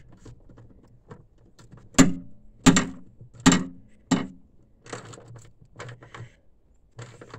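Socket wrench on an extension tightening the bolts of a truck's battery hold-down bracket: sharp metallic clicks and clinks, four loud ones between about two and four seconds in, then softer ones.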